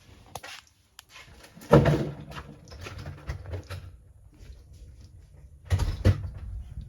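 A few knocks and bumps of things being handled or moved, the loudest about two seconds in and a pair more near the end, over a low rumble.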